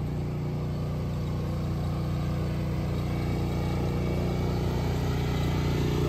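Small gasoline engine running steadily at a constant speed, a low even hum.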